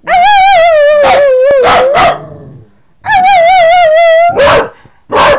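Dog howling loudly in long, wavering cries, one lasting about two seconds and another beginning about three seconds in, with short sharp yips or barks in between.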